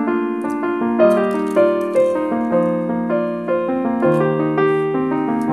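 Background piano music: a gentle melody of held notes, about two notes a second.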